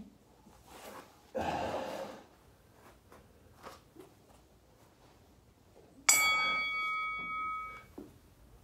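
A short breathy rush about a second and a half in, then, about six seconds in, a sudden bright metallic ding with several ringing tones that die away within two seconds.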